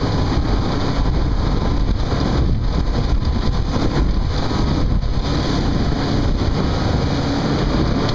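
Honda 130 hp four-stroke outboard motor running steadily while the boat cruises, mixed with wind buffeting the microphone and the hull rushing through water.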